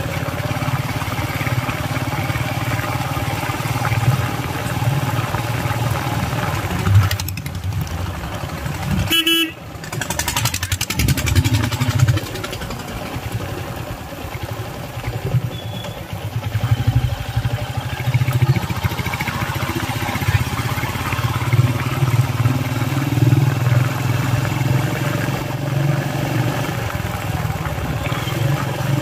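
Engine of the vehicle being ridden, running steadily on the move, with road and wind noise. A short horn toot comes about nine seconds in.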